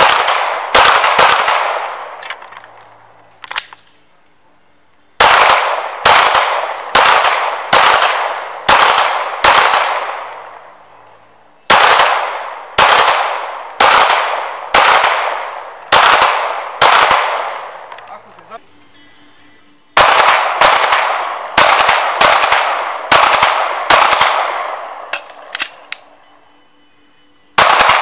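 Gunshots at target shooting, fired in quick strings of six or seven, about one shot a second, each with a long ringing echo. Pauses of a few seconds fall between the strings.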